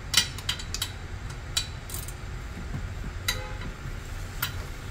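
Sharp metallic clicks and clinks as rear brake pads and their hardware are handled and seated in a Subaru Outback's rear caliper bracket, about seven over the few seconds. One clink a little past the middle rings briefly.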